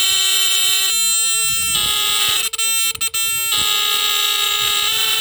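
The horns of three vintage 1960s Japanese D-cell fire alarms (Fedtro Giant, Star Fire and Tanita Mfg) sounding together, loud steady buzzing tones at different pitches. The mix of pitches shifts a few times as horns cut in and out, with two brief dropouts a little past the middle.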